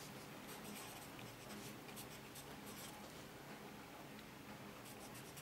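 Pencil writing on paper: faint scratching in short strokes as letters and numbers are written.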